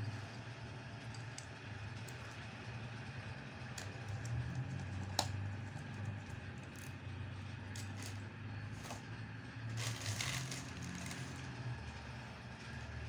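Small clicks, taps and scrapes of fingers handling a mobile phone's plastic housing and metal LCD frame, with one sharp click about five seconds in and a brief run of scraping near the end, over a steady low hum.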